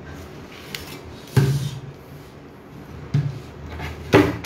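Three knocks and thumps as a crusty freshly baked baguette is lifted from a metal baguette tray and set on a wooden cutting board, with a knife taken up beside it; the last knock, near the end, is the loudest.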